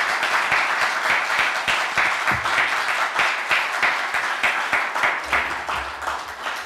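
Audience applauding: a room full of people clapping steadily, thinning out near the end.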